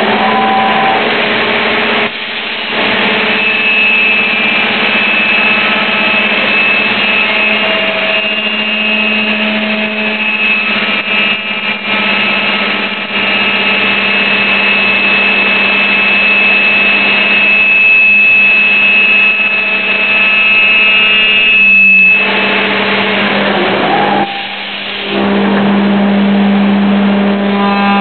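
A 5-axis CNC machining centre milling wood: the spindle runs with a steady hum and whine while the cutter works through the wooden workpiece. The noise drops briefly about two seconds in and twice near the end, as the cutter leaves the wood.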